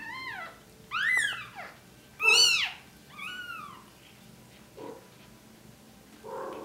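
Newborn Bengal kitten mewing: four high-pitched cries that rise and fall, the third the loudest, followed by two short, fainter sounds near the end.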